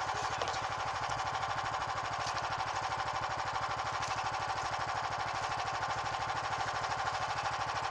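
An engine idling steadily, a rapid even pulse that does not change.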